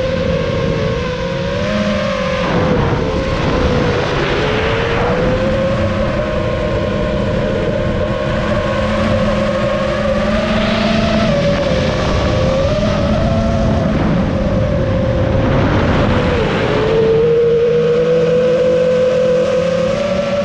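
FPV drone's brushless motors and propellers whining, the pitch drifting up and down as the throttle changes, with a few short swells of rushing noise.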